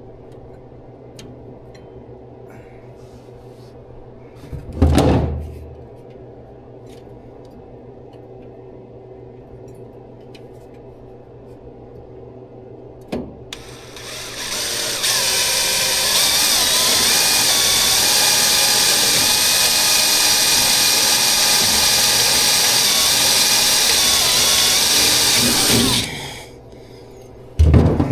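A hand-held power tool starts about halfway through, comes up to speed and runs steadily for about ten seconds before stopping sharply. A dull thump sounds about five seconds in, and another near the end.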